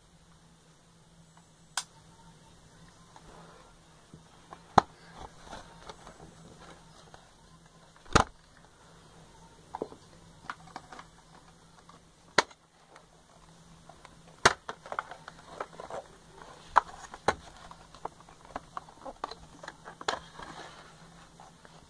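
Handling noise close to the microphone: scattered sharp knocks and taps with light rustling. Several louder bangs are spread through it, and the tapping and rustling grow busier in the second half.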